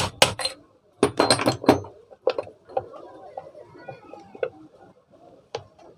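Sharp taps and knocks of a tool on metal ceiling-fan parts during a bearing change: two quick runs of rapid taps in the first two seconds, then single knocks every second or so.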